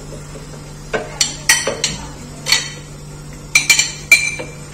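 Metal spoon clinking and scraping against a glass bowl as chopped tomatoes are scooped into a blender jar: a series of sharp, irregular clinks, several in quick succession near the end.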